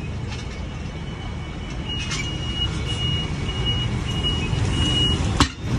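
A steady low engine rumble with a high electronic beep repeating about twice a second for a few seconds. Near the end comes one sharp metal clank as the manual bead breaker is worked on the steel-wheeled tyre.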